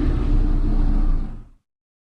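Argentinosaurus creature sound effect: a deep, rumbling sauropod dinosaur call that fades out and ends about a second and a half in.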